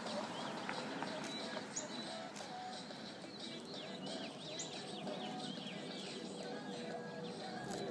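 Small birds chirping, a run of quick repeated chirps in the middle, over steady outdoor background noise.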